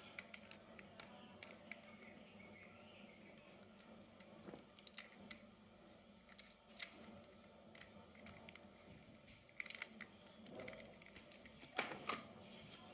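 Near silence broken by faint, scattered small clicks and taps, with a short cluster about ten seconds in and a slightly louder click about twelve seconds in.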